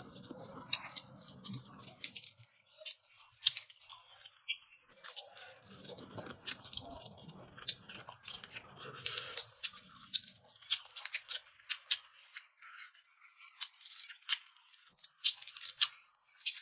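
Chewing, and cooked shrimp being peeled by hand: many quick sharp crackling clicks from the shells, thickest in the second half.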